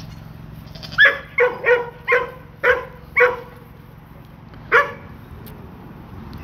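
A dog barking: six quick barks in a row starting about a second in, then one more after a pause.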